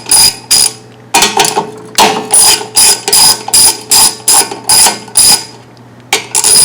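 Ratchet wrench clicking in quick, even back-and-forth strokes, about two to three a second with two short pauses, loosening a 10 mm bolt on a Kohler small engine.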